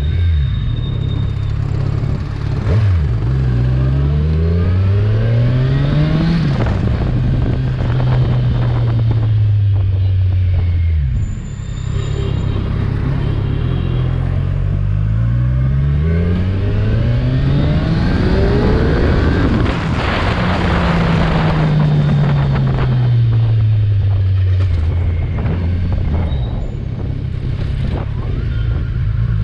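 Kawasaki Ninja 1000's inline-four engine and exhaust on the move: the revs climb in quick steps as it accelerates up through the gears, drop back, climb through the gears again, then fall steadily as it slows.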